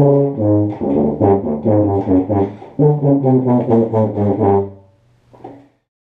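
Tuba played solo: a run of short notes that changes pitch every fraction of a second, dying away about five seconds in.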